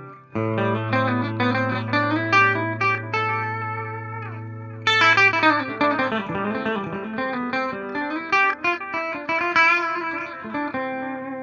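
Clean PRS electric guitar played through a Donner Alpha Force pedal with its delay and chorus both on, into a Fender Twin Reverb amp: picked chord notes ringing over a held low note, with a new chord phrase struck about five seconds in.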